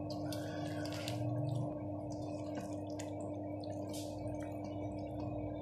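Wet squelching and crackling of a hand kneading chicken pieces in a thick spice marinade in a steel bowl, in short irregular squishes over a steady hum.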